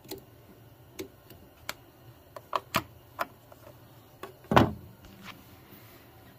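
Scattered light clicks and taps from hands and a metal tool working around a plastic brake master cylinder reservoir, with one louder thump a little past halfway.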